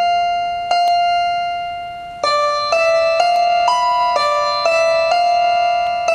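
Slow instrumental keyboard music: a single held note struck twice, then from about two seconds in a melody of single notes at about two a second, each ringing and fading.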